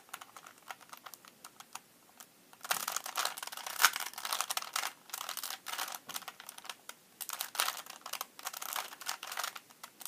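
Plastic layers of a 3x3 Rubik's Cube clicking and clacking as they are turned by hand: a few light clicks at first, then quick runs of turns from about three seconds in, with a short pause near the middle. The turns insert the last pair that completes the first two layers.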